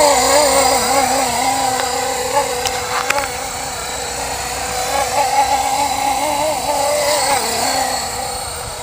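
Blade SR electric radio-controlled helicopter in flight: the motor whine and rotor buzz run steadily while the pitch wavers up and down as the rotor loads and unloads. A few faint clicks come about three seconds in.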